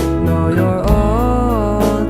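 Background song: a melodic vocal line over plucked guitar and a steady bass.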